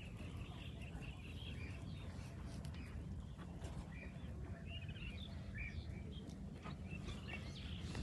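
Faint, irregular chirping of small birds over a steady low rumble.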